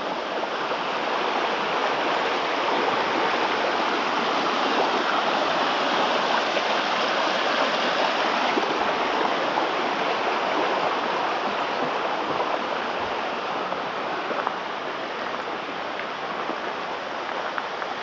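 Mountain creek rushing over rocks in a steady, loud wash of water noise, easing off a little in the second half.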